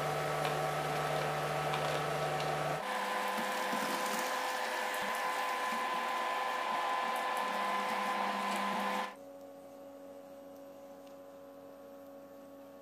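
Cauliflower frying in a pan, a steady sizzle over a constant electrical hum, changing abruptly twice as the shots cut. It drops to a much quieter steady hum for the last few seconds.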